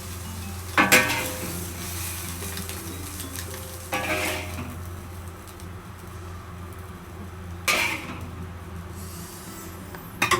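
Food sizzling in a pan while a metal utensil stirs it, knocking sharply against the pan about four times, a few seconds apart, each knock ringing briefly, over a steady low hum.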